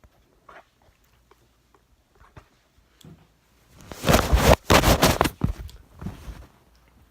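A person coughing hard: two loud, harsh coughs about four seconds in, followed by a few weaker ones.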